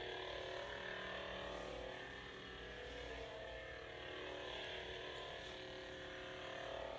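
Steady electronic hum of lit Ultrasabers LED lightsabers idling, a buzzing drone of several held tones.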